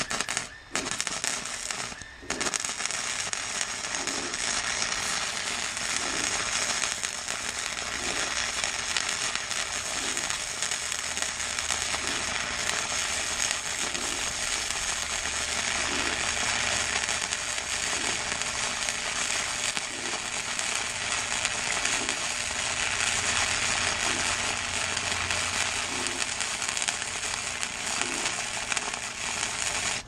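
Harbor Freight Chicago Electric 90-amp flux-core wire welder arc welding a continuous bead, a steady crackle with a short break about two seconds in before the arc restarts.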